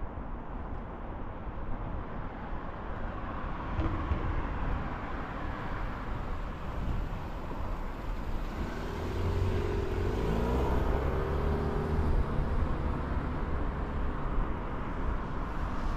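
Road traffic: a motor vehicle passes about two-thirds of the way in, its engine note sliding down as it goes by, over a steady low rumble of traffic and wind.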